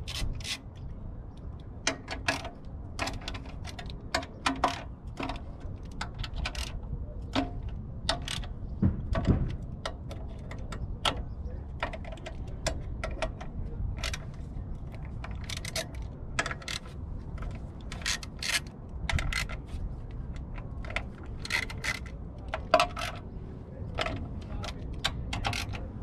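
Socket ratchet clicking in short, irregular runs, with light metallic clinks, as the 10 mm bolts on a 2005 Toyota Prius inverter cover are undone.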